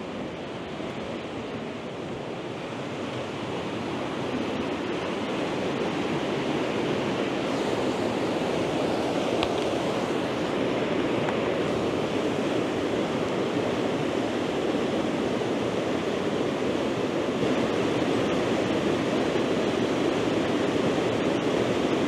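Rushing water of a rain-swollen river and its waterfalls, a steady noisy rush that grows louder over the first few seconds and then holds.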